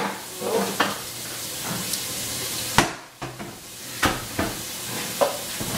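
Steady background hiss broken by several short knocks and bumps as a person gets up from a table and moves away. The sharpest knock comes a little before the middle.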